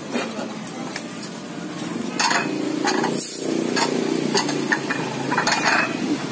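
Ceramic bowls clinking and knocking against each other as they are handled and stacked, a string of short sharp clinks, thickest from about two seconds in, over a steady background hum.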